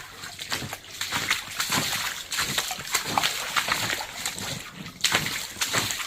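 Boots splashing and sloshing through standing water on a flooded basement floor, a quick uneven run of splashy steps.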